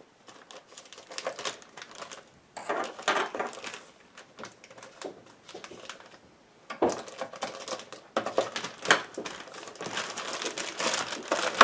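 Clear plastic bag crinkling and rustling as it is cut with a knife and pulled open, in irregular bursts with short pauses and a few sharp clicks.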